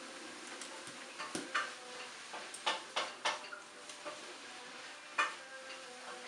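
Plastic Lego bricks clicking and clattering as they are handled and pressed together: a few irregular sharp clicks, loudest in a cluster of three in the middle and one more near the end.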